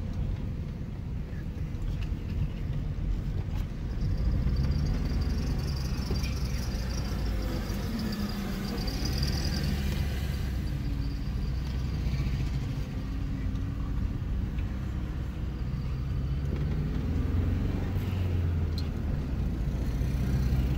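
Car engine and road noise heard from inside the moving car's cabin: a steady low rumble, with the engine note rising and falling a few times.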